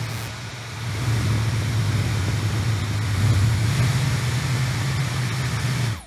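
Laifen high-speed brushless hair dryer running: a steady rush of air with a low hum, growing louder about a second in. Really nice and quiet for a hair dryer.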